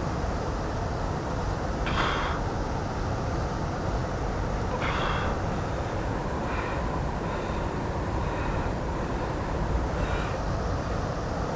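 Steady rushing background noise, heaviest in the low end, with two brief higher-pitched sounds about two and five seconds in and a few fainter ones later.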